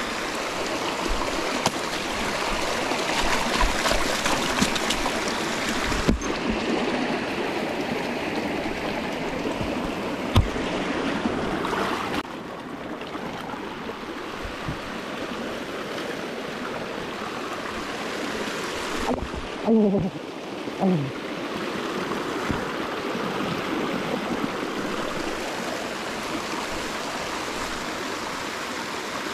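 Stream water rushing steadily over rocks. There is a sharp knock about a third of the way in and two short pitched sounds about two-thirds through.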